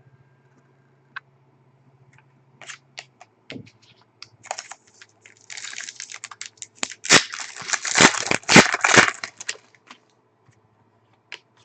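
A trading-card pack wrapper crinkling as it is handled. A few light clicks and taps come first, then dense crinkling that is loudest a few seconds in.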